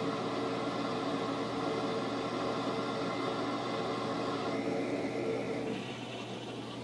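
Steady machine-like whirring hum with an even hiss, growing quieter near the end.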